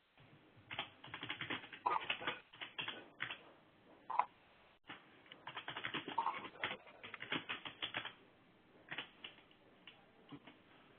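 Typing on a computer keyboard, heard over a web-conference line: quick runs of key clicks with short pauses between them, thin and muffled, with nothing above the line's narrow band.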